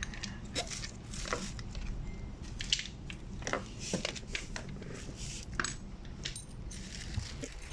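Scattered light clicks and clinks of small hard objects being handled, over a steady low hum.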